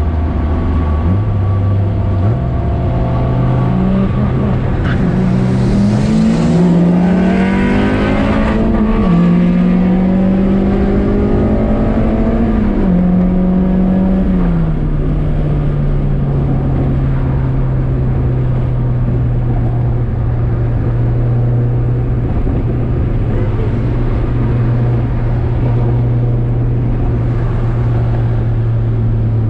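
Car engine heard from inside the cabin while driving on the highway, its pitch rising and dropping back several times over the first fifteen seconds as the car accelerates, then holding a steady hum at cruising speed.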